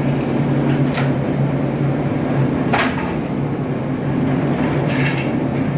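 Steady loud drone of ship's engine-room machinery, a constant low hum, with a few sharp metallic knocks from the overhaul work about a second in, around the middle and near the end.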